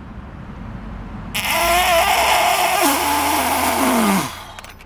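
Compressed air hissing loudly out of a valve or fitting. It starts abruptly about a second and a half in, lasts about three seconds, and carries a wavering whistle that sinks in pitch just before it cuts off.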